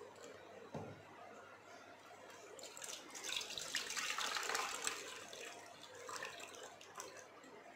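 Thick green liquid poured from a steel pot through a plastic mesh strainer into a bowl, splashing and trickling, loudest from about three to five seconds in. A soft knock comes just before a second in.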